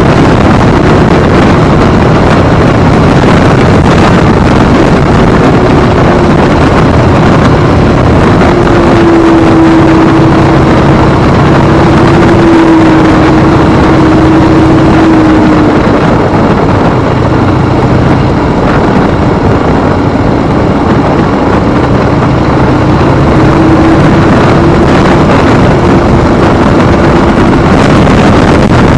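Harley-Davidson V-twin motorcycle engine running at cruising speed under heavy wind noise on the microphone, its note shifting slightly in pitch as the speed changes.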